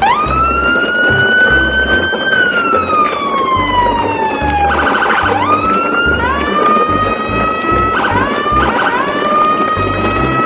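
Emergency-vehicle siren wailing: it sweeps up, slowly falls, gives a quick warble about five seconds in, then rises again and holds, dipping briefly twice near the end. A bass beat of background music runs underneath.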